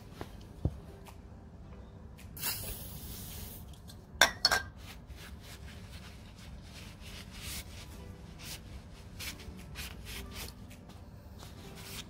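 Tissue paper rubbing and wiping a dry metal pivot bolt from an electric scooter's rear, the bolt whose dryness is causing the squeak, with light metallic clinks and clicks. A short hiss of aerosol spray about two and a half seconds in, lasting about a second.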